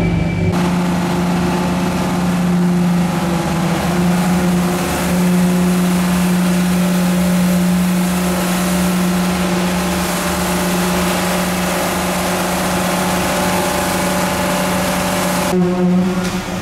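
Steady drone of construction machinery running, a constant engine-like hum that shifts briefly near the end.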